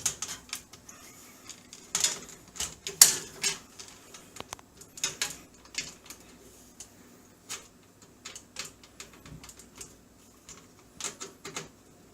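Irregular clicks and taps of a screwdriver and screws working at a motherboard standoff in a PC case. A few sharper knocks come about two and three seconds in.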